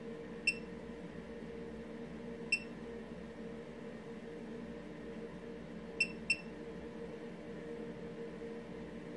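Aion A7 digital Geiger counter giving four short, high-pitched beeps at irregular intervals, the last two close together; each beep marks one detected count of ordinary background radiation.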